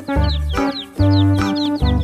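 Upbeat children's-style background music: pulsing bass notes under a held tune, with short falling chirping notes repeating high above.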